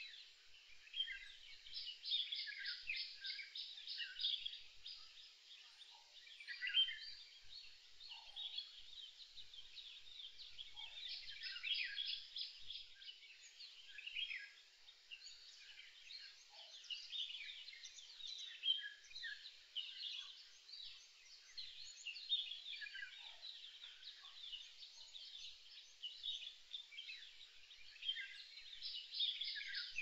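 Several small birds singing and chirping over one another, with a fast high trill that comes back a few times.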